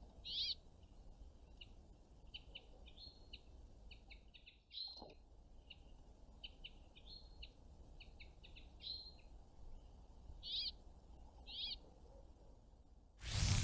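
Small songbirds chirping and calling in short bursts, with a few louder calls that repeat. Near the end a loud rushing noise cuts in.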